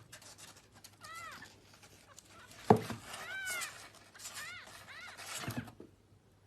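A cat, high-pitched like a kitten, meowing several short mews that rise and fall in pitch, with a sharp knock about a third of the way in and a duller thump near the end.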